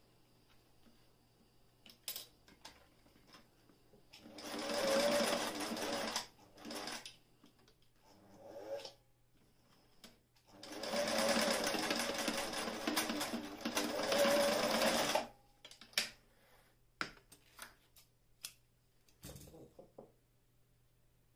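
Singer 457 Stylist zigzag sewing machine running as it stitches through layered thick fabric. It runs in two spells, one of about two seconds and a longer one of about four seconds, with two short bursts between them. Scattered clicks and knocks of handling follow near the end.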